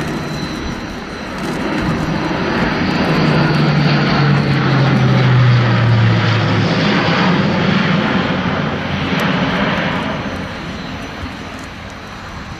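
Airbus A400M's four TP400-D6 turboprop engines and propellers droning as the aircraft flies past overhead. The sound swells to its loudest about six seconds in, its low propeller hum dropping in pitch as it passes, then fades away.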